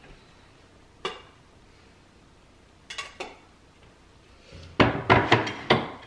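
Candle jars knocking and clinking against a cabinet shelf as they are moved around: single knocks about a second in and about three seconds in, then a quick run of louder knocks near the end.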